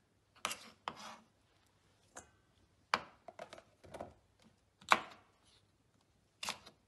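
Chef's knife cutting vegetable stalks on a wooden cutting board: scattered, irregular knocks of the blade against the board, with pauses between strokes and the loudest knock about five seconds in.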